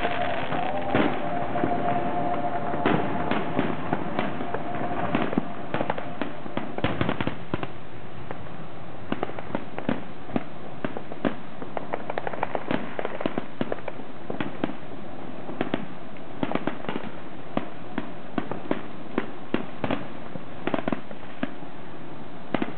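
Distant aerial fireworks shells bursting: a rapid, irregular series of sharp bangs and crackles.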